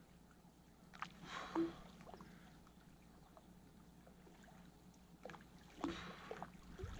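Faint splashing and sloshing of river water, with a few small splashes and plops about a second in and again around five to six seconds in.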